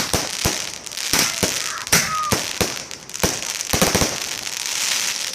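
Consumer fireworks going off: a quick, irregular series of sharp bangs over a steady crackling hiss, with a short whistle about two seconds in.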